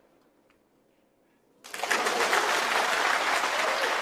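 Snooker audience breaking into sustained applause, starting suddenly about two seconds in after a faint click of balls.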